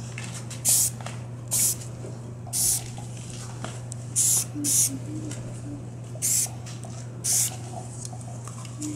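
Rust-Oleum camo spray paint hissing from an aerosol can in seven short bursts, roughly a second apart, as paint is dabbed on in patches. A steady low hum runs underneath.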